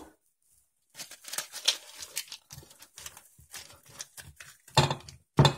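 Brown paper wrapping crackling and tearing as it is pulled off a boxed axe head by hand, followed by two sharp knocks about half a second apart near the end.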